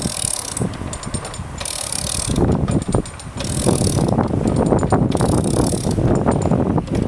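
GOWindlass ratchet windlass pumped back and forth on a canal lock's paddle spindle: a rasp of ratchet clicks about every one and a half to two seconds, with lighter single clicks between, as the paddle is raised. From about two and a half seconds in, a low rushing builds under the clicks, the sound of water running through the opening paddle.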